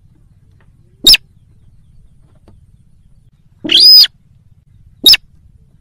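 Slaty-breasted rail calling, a recorded lure call: a short sharp note about a second in, a longer, harsher call of about half a second just before the four-second mark, and another short sharp note near the end.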